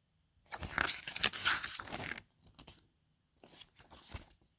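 Paper rustling and crinkling as a thin assembly booklet is handled and its pages turned, loudest in the first two seconds, then a few softer rustles.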